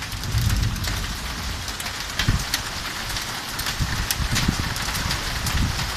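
Heavy rain falling, with many sharp ticks of drops striking a surface close by over a steady hiss, and an uneven low rumble underneath.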